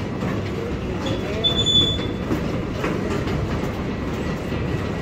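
Airport baggage carousel running empty, its conveyor slats giving a steady rumbling clatter, with a short high squeal about a second and a half in.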